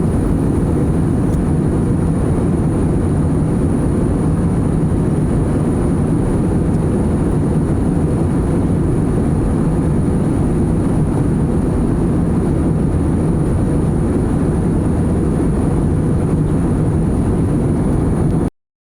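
Steady roar of a jet airliner's cabin in flight, a deep even rush of engine and air noise with a faint thin high tone over it; it stops abruptly near the end.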